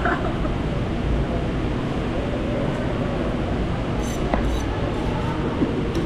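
A steady, loud, low rumbling background din in a fast-food restaurant, with a few light clinks about four seconds in.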